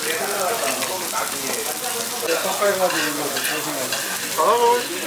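Busy restaurant din: many people talking over one another, over a steady hiss, with one voice rising louder near the end.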